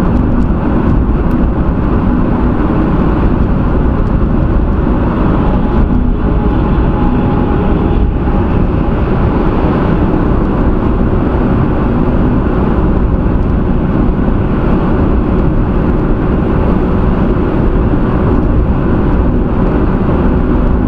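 Steady road noise inside a car cruising at highway speed, with a faint steady hum under it.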